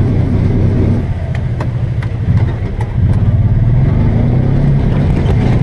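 Kawasaki Teryx4 side-by-side UTV's V-twin engine running steadily under way, a low pulsing rumble, with a few light clicks or rattles about a second in.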